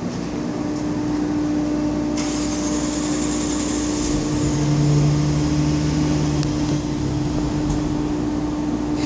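A vehicle engine running steadily with a constant hum. A lower droning note joins it for about two seconds near the middle, and a high hiss passes shortly before that.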